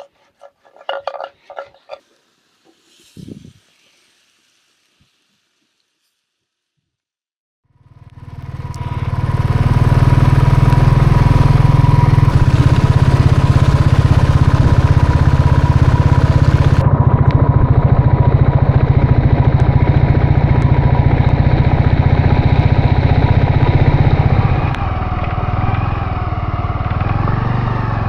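Heavy rain drumming steadily on a tarp, a dense loud noise that sets in about a third of the way through after a few light clicks and near silence, easing slightly near the end.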